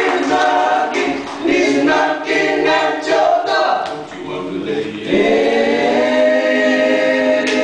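Group of male voices singing a cappella in close harmony, amplified through handheld microphones. The notes change every half second or so at first, then about five seconds in the group settles on one long held chord.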